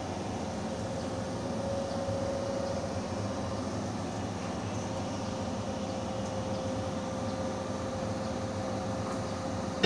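Steady background rumble and hiss with a faint hum, room noise picked up by an open microphone before any singing or backing music.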